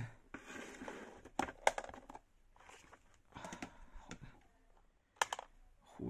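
A clear plastic box with vent holes being handled and opened by hand: plastic rustling and scraping with several sharp clicks, the loudest about five seconds in.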